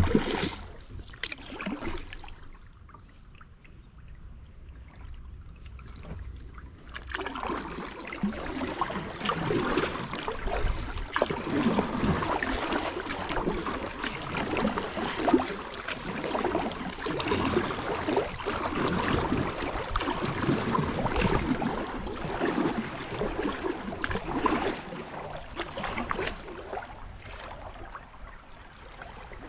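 Water splashing and rushing around a kayak on a river, with a few sharp knocks right at the start. It is quieter at first, then grows louder and busier about seven seconds in.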